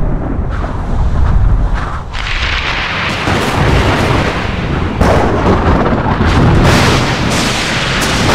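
Thunderstorm sound effect: deep rumbling thunder with a sharp thunderclap about five seconds in. A rushing hiss of storm noise builds from about two seconds in.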